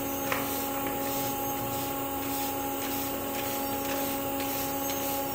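Steady machinery drone inside an industrial plant: several steady tones held over a hiss, with a faint click about a third of a second in.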